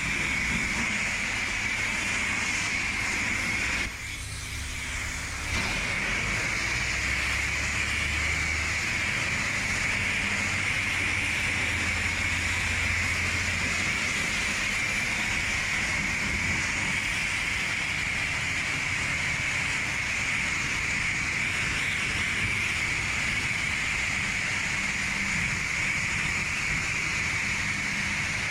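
High-pressure car wash wand spraying water onto a car in a steady hiss, cutting out briefly about four seconds in before spraying again.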